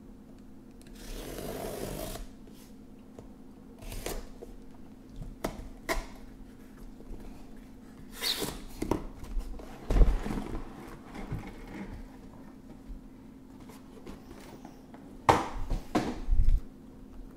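A cardboard shipping case being opened and emptied: the packing tape along its seam is slit open with a scraping hiss about a second in. Then come the knocks and clunks of flaps and sealed card boxes being handled and set down, the loudest about ten seconds in and a cluster near the end.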